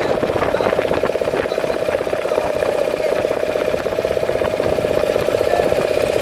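Outboard motor of an inflatable rescue boat running steadily under way, a fast-pulsing engine drone.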